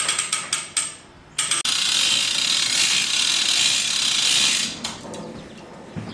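Manual chain hoist (chain fall) being hauled up by its hand chain while lifting a Jeep body tub: quick runs of ratchet clicking in the first second, then about three seconds of continuous rattling as the chain is pulled faster, fading out near the end.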